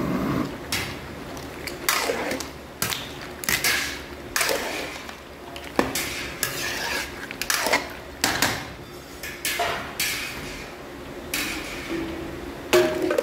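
Metal spatula and ladle scraping and clinking against a large metal paella pan as the rice and seafood are stirred, in irregular strokes about a second apart.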